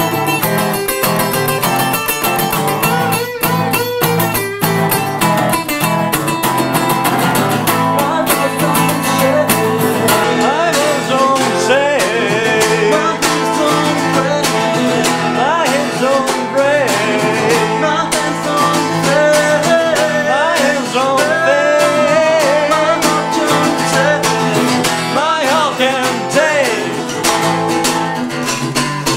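An acoustic guitar and a resonator guitar played together in a blues/country-style duet, fingerpicked and strummed. From about ten seconds in, wavering, gliding notes ride over the accompaniment.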